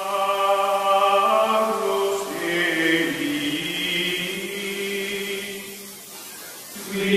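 Choral chant in outro music: voices holding long sustained chords. The chord shifts about two seconds in, fades away, and a new chord swells up near the end.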